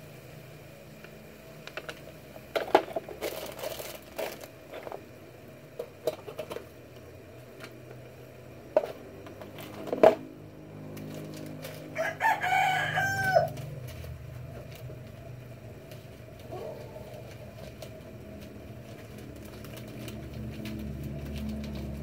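A rooster crows once, about twelve seconds in, over a steady low hum. Scattered sharp clicks and knocks come before the crow, the loudest shortly before it.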